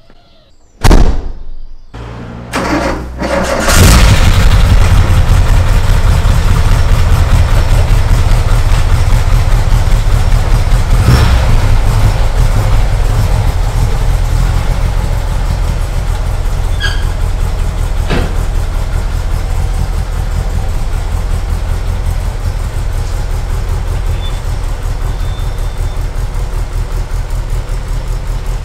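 A door slams shut, then the VW T3 Syncro's water-cooled flat-four petrol engine is cranked and catches about four seconds in. It then runs steadily at low revs, with a couple of brief clicks over it.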